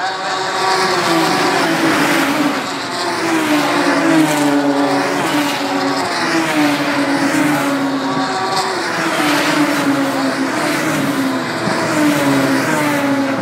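A stream of Radical sports-prototype race cars passing at racing speed one after another, each high-revving engine note dropping in pitch as the car goes by.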